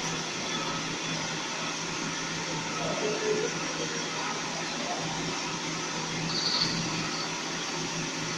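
CNC milling machine running with a steady mechanical hum and whir, its spindle turning the cutter on a coolant-wet workpiece.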